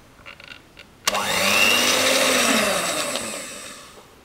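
Electric hand mixer beating thick whipped cream. It starts suddenly about a second in, its motor whine rising in pitch, then slows and fades out near the end as it winds down.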